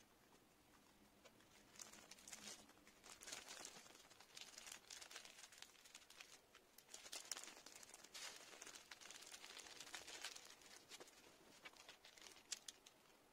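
Sheet of paper towel being crumpled and folded in the hands: irregular soft crinkling rustles starting about two seconds in and thinning out near the end, with a few small clicks.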